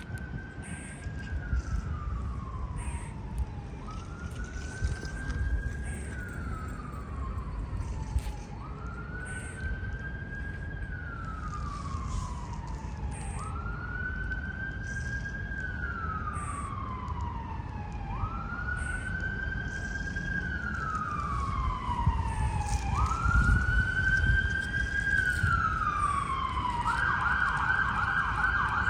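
Emergency vehicle siren in a slow wail, each cycle rising, holding, then falling, about every four seconds, growing louder as it approaches. Near the end it switches to a fast yelp.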